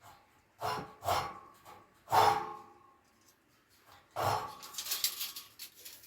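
Metal knocks and clanks: three sharp knocks that each ring briefly, then a final knock about four seconds in that runs into a quick rattle. This is metal tools and bar being handled against the steel jig while a measurement is taken.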